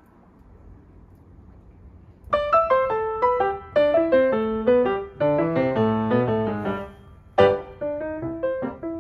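Background piano music: a quiet pause, then a piano melody with chords starts a couple of seconds in and carries on.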